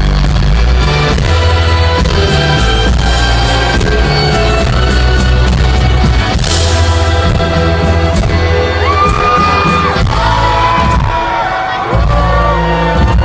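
Rock band playing live through a loud PA, with a steady drumbeat and heavy bass. In the last few seconds, high held whoops rise over the music.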